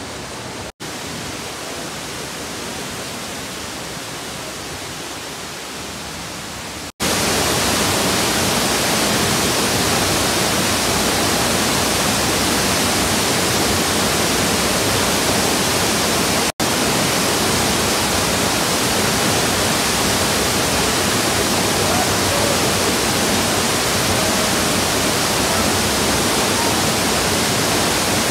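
Steady rushing of a large waterfall. About seven seconds in it becomes much louder and brighter, heard from right below the falls, and it drops out to silence three times for a split second.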